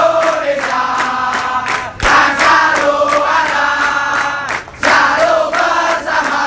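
Large crowd of football supporters singing a chant in unison, with sharp beats keeping time. The singing breaks off briefly about two seconds in and again near five seconds.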